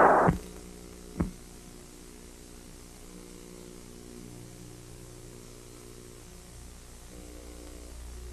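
A loud roar cuts off abruptly just after the start, a single thump comes about a second in, and then only a low steady hum of several faint tones remains: the background hum of an old film soundtrack.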